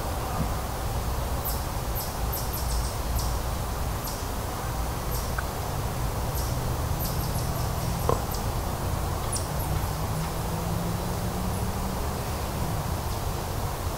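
Outdoor woodland ambience: a steady low rumble of distant traffic, with a faint low hum from about six to thirteen seconds in and scattered faint high ticks.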